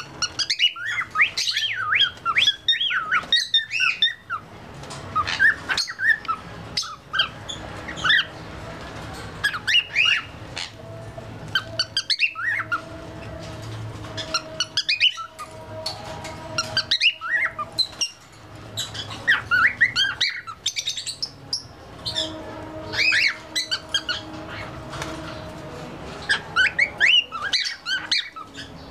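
Juvenile grey cockatiel chirping and warbling in repeated phrases of quick rising and falling notes, with short pauses between them. This is the twittering of a young bird that is starting to learn its whistle.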